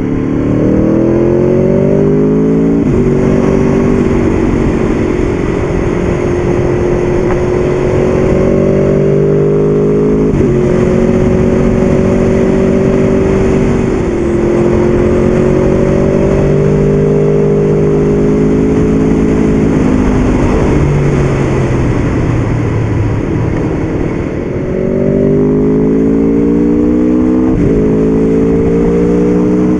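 Aprilia Tuono V4 APRC's 1000 cc V4 engine on its stock exhaust, pulling on the road. The revs climb in long pulls and drop sharply at each gear change, ease down for a few seconds past the middle, then climb hard again.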